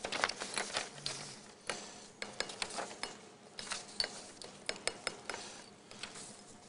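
A spoon stirring in a cup, clinking irregularly against its sides a couple of times a second.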